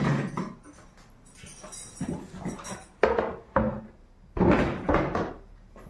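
Kitchen handling sounds: a plastic packet rustling as it is taken from a lower cupboard, then several sharp knocks and a heavier thud as the cupboard door is shut, the loudest about four and a half seconds in.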